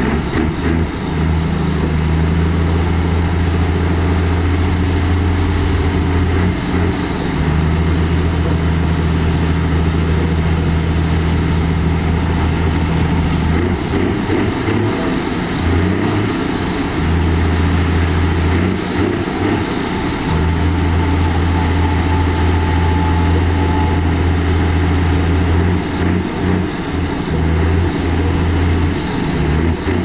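Heavy diesel construction machinery running, a loud deep engine drone that drops away briefly and comes back several times.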